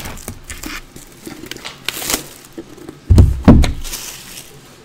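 Cardboard trading-card box in shrink-wrap being handled with light rustling and clicks, then two heavy thumps about three seconds in as the box is set down on the table.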